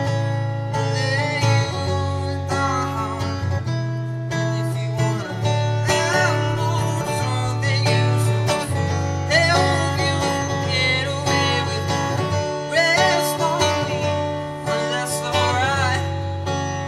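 Acoustic guitar played live with sustained low notes, with a man singing over it in held, wavering notes.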